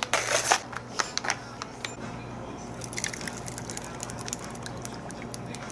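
A plastic cup of ice and a plastic drink pouch being handled: ice cubes rattle and plastic crackles in a short burst at the start, followed by scattered sharp clicks and taps.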